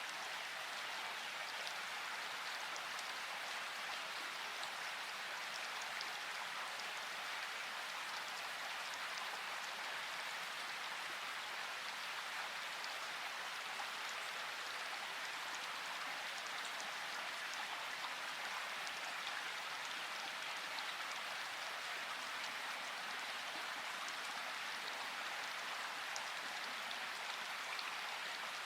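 Steady rain falling, an even hiss with fine drops pattering on a surface throughout.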